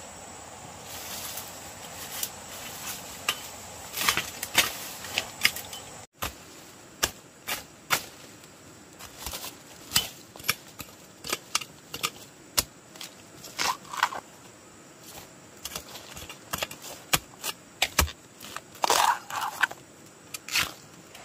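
Irregular sharp knocks, taps and scrapes of work with hand tools. There is a brief dropout about six seconds in.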